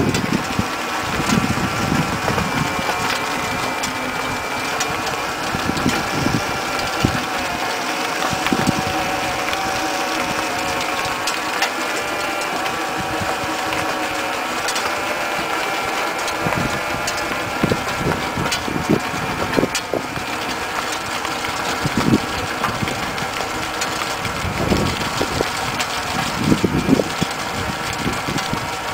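Sun Horse all-electric tractor driving a rear-mounted rotary tiller through soil: a steady whine of several held pitches from the electric drive and tiller gearing, with low thumps here and there, more of them near the end.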